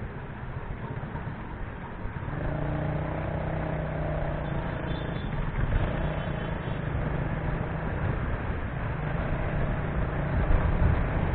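Road traffic: a motor vehicle's engine running with road noise, its hum getting steadier and a little louder about two seconds in.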